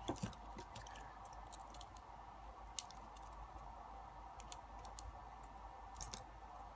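Light metallic clicks and ticks from a thin shim being worked in around the plug of a brass lock cylinder, so that the plug can be pulled out. A few louder clicks come at the very start, then single ticks every second or two, over a faint steady hum.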